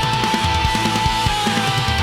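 Rock band playing an instrumental passage: a long held lead-guitar note over distorted guitar, bass and fast drum hits.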